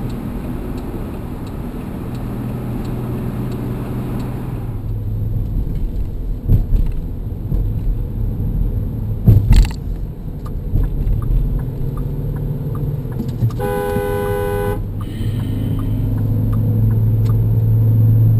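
Road noise and engine hum inside a moving car, with a car horn sounding once for about a second near the end. A sharp knock about halfway through is the loudest sound, and faint regular ticking runs through the second half.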